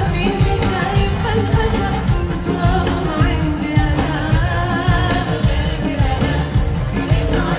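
Live Arabic pop music played loud through a concert sound system, with a singing voice over a steady heavy beat, heard from within the crowd.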